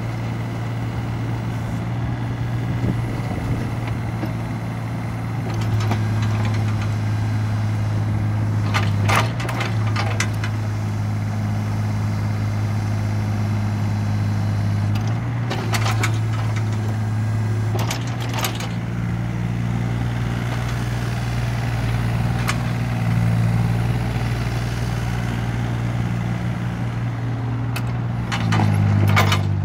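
Takeuchi TB235 compact excavator's diesel engine running steadily while its boom, arm and bucket are worked and the machine swings. The engine note shifts every few seconds as the hydraulics take load. Several sharp metallic knocks sound along the way, with a cluster near the end.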